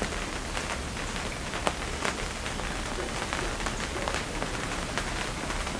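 Rain falling on the floating cabin's plastic greenhouse roof: a steady hiss dotted with irregular sharp drop ticks.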